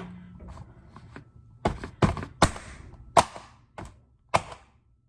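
About six sharp knocks and clacks of kitchen things being handled, irregularly spaced, with the loudest around the middle and a faint short hiss trailing some of them.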